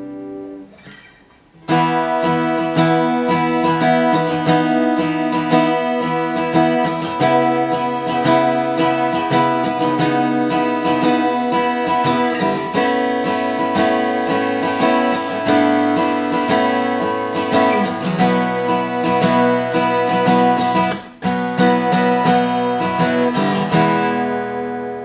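Furch Violet GC-SM grand concert acoustic guitar, Sitka spruce top with mahogany back and sides, played solo in strummed chords. A chord fades out at the start, the playing comes back in strongly about two seconds in, breaks off briefly past the three-quarter mark, and the last chord rings out near the end.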